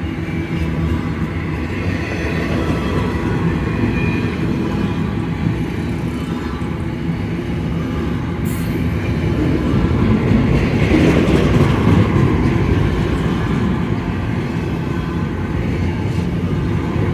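Freight train rolling past with a steady rumble and wheel clatter on the rails, growing louder about ten to twelve seconds in.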